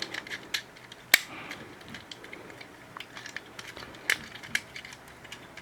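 Hard plastic parts of a Transformers action figure clicking and creaking as they are pressed and twisted into place during transformation, with a sharp snap about a second in and another about four seconds in.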